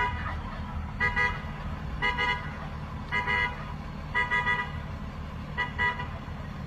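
A vehicle horn beeping in short blasts, some doubled, about once a second at uneven spacing, over a steady low engine rumble.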